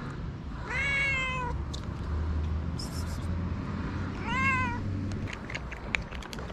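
Domestic cat meowing twice, a longer call about a second in and a shorter one a few seconds later, each rising and falling in pitch.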